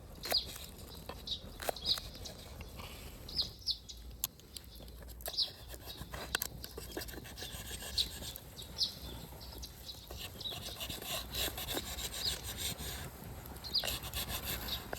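Irregular rasping and scraping on wood, with sharp little clicks, while short high bird chirps sound again and again.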